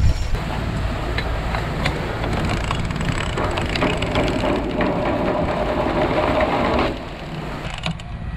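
Sailboat winch cranked by hand while a sail is hoisted, its pawls ratcheting in a fast, even clicking. The clicking stops suddenly about seven seconds in.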